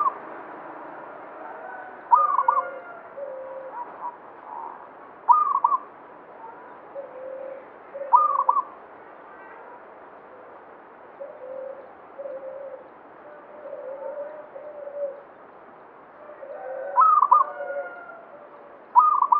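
Caged zebra dove (perkutut) cooing: short, loud, higher notes come about every three seconds, with softer low cooing notes between them, and a pause in the loud notes in the middle.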